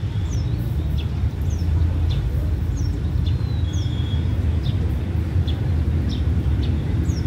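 Diesel locomotive of an approaching express train giving a steady low rumble as it draws into the station. A bird chirps over it in short, high, falling notes, about one or two a second.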